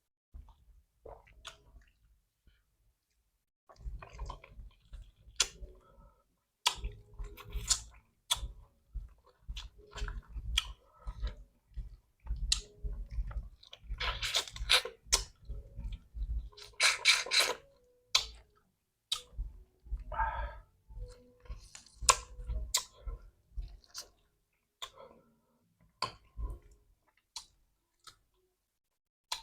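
A person chewing fried chicken with crunching bites, the loudest crunches coming about 14 and 17 seconds in.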